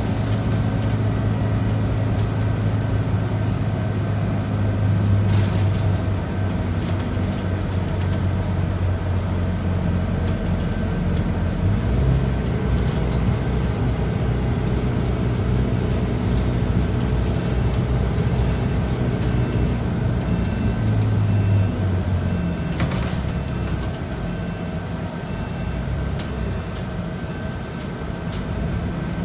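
Scania DC9 nine-litre six-cylinder diesel of a Scania K94UB bus running under way, heard from inside the bus. Its note changes about twelve seconds in and again a little after twenty seconds, and it runs quieter near the end as the bus eases off. A regular light ticking sounds through the second half.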